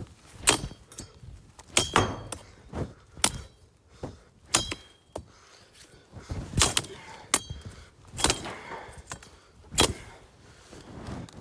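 Irregular chopping strikes of a metal-bladed tool cutting sneezeweed stalks, about a dozen in all, several followed by a brief metallic ring.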